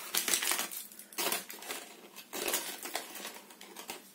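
A paper spice packet crinkling and rustling in several short bursts, about one a second, with light clinks as a pinch of crushed nutmeg is taken on a knife tip.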